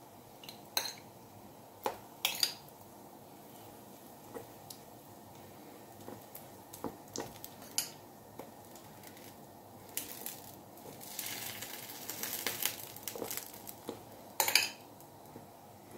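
A spoon clinking against a glass bowl as tomato sauce is scooped out and dropped onto pizza dough in a non-stick frying pan: scattered sharp clinks, then a longer stretch of scraping as the sauce is spread over the base, and a last clink near the end.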